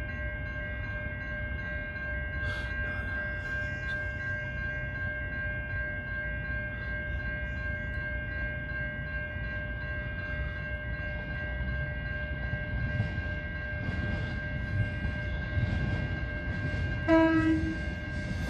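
An approaching train rumbling low and growing a little louder, under a steady high-pitched whine. About 17 seconds in, the train's horn gives one short toot.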